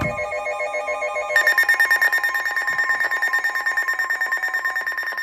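Electronic alert tone: a lower pulsing ring gives way, a little over a second in, to a loud, rapidly pulsing high tone. It is the alert sound that comes just before a spoken severe thunderstorm warning.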